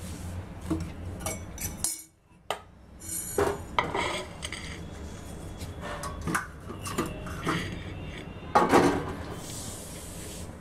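Plate and kitchen utensils being handled on a counter: a series of knocks and clinks, with a brief break about two seconds in and the loudest clatter a little before the end.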